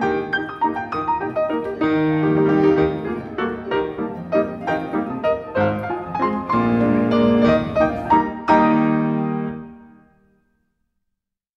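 Solo piano playing a ballet class accompaniment, a melody over chords in a steady rhythm; the last chord dies away about ten seconds in.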